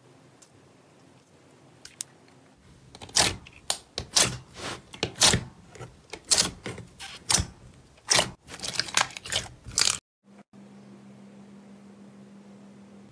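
Clear glitter slime being pressed and squeezed by hand in a plastic tub, giving a run of irregular wet pops and crackles. These cut off suddenly about ten seconds in, and a faint steady hum follows.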